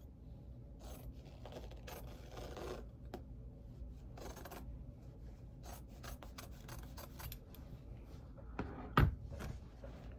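Sewing scissors snipping through folded fabric in a string of short cuts, some in a quick run, with the cloth rustling. One sharp thump about nine seconds in is the loudest sound.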